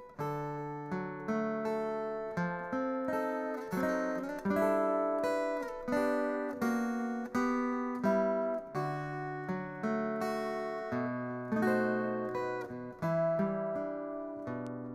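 Solo steel-string acoustic guitar played fingerstyle: bass notes under a melody and chords, each plucked note ringing and fading.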